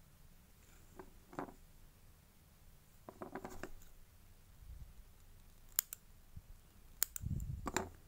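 Small metal craft scissors handled over a clay piece, giving two sharp metallic clicks in the second half. Soft rustles and taps of fingers pressing clay on a paper board come in between.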